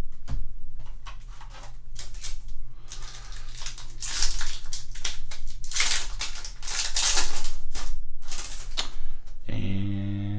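A Yu-Gi-Oh booster pack's foil wrapper crinkling and tearing open in the hands, a run of irregular crackling rustles. A short low buzzing hum comes in near the end.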